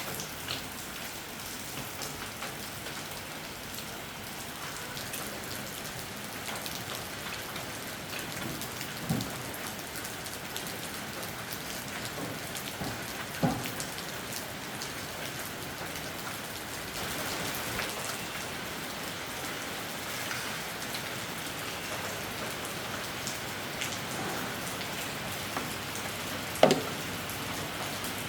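Steady rain falling during a storm, with a few louder taps standing out; the sharpest comes near the end.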